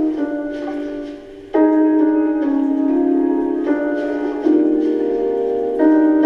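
Piano-like keyboard music played through small, cheap Sony SS-MSP1 bookshelf speakers. It has no deep bass and a new chord comes every second or two, with a short dip in loudness just before one about a second and a half in.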